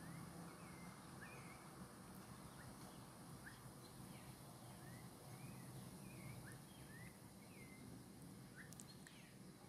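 Faint, scattered short bird chirps, one or two a second, over a low steady hum.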